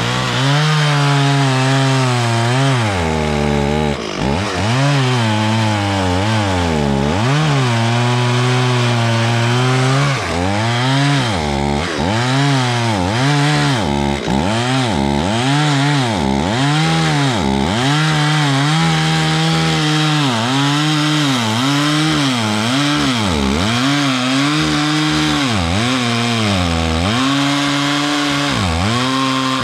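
Stihl 440 two-stroke chainsaw cutting wood, its engine pitch repeatedly dropping under load and rising again about once a second.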